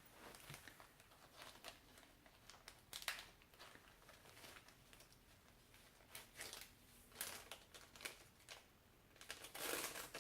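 Faint, intermittent crinkling and rustling of small jewelry bags being handled and opened, in short irregular bursts of a fraction of a second each.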